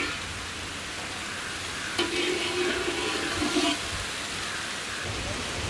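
Steady outdoor background hiss, with a faint low hum for a second or two in the middle.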